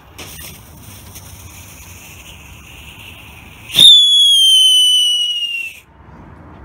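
Gillende keukenmeid, a small Category 1 whistling firework: after lighting, its fuse hisses for a few seconds, then it lets out a loud shrieking whistle that falls slightly in pitch for about two seconds and cuts off suddenly.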